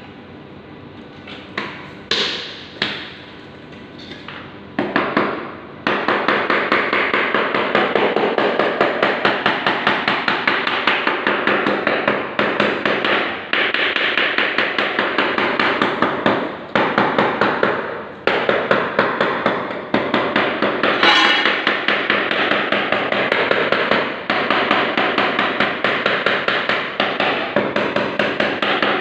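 A few separate knocks, then from about six seconds in rapid, continuous hammering strikes on hard material, such as tile or mortar being worked during tile repair.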